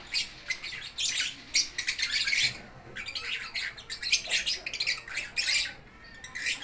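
Caged lovebirds squawking and screeching in quick, irregular, shrill calls, several a second, from more than one bird.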